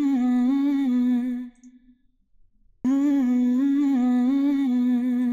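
Isolated vocal stem split from a song by Spleeter playing back solo: a singer holding long, slightly wavering notes in two phrases, with a pause of about a second between them.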